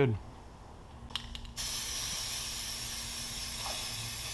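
Aerosol spray-paint can spraying with a steady hiss, starting about one and a half seconds in after a few light clicks. The paint is being sprayed into the corner of a container to load a sponge.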